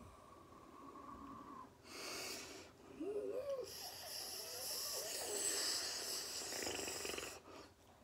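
A man's breathy, hissing mouth and throat noises with snorts: a short hiss about two seconds in, then a longer hissing stretch from about three to seven seconds, opening with a few brief voiced whines.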